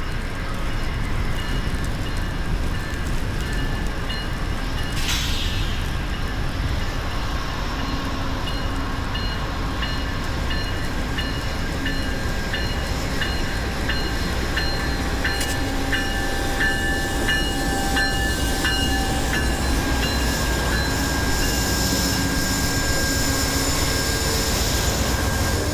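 Amtrak passenger train led by diesel locomotives approaching and passing close by in deep snow: the engines give a steady rumble, and a high ringing repeats at an even beat for most of the pass. Near the end a rushing hiss builds as the locomotives and cars go by.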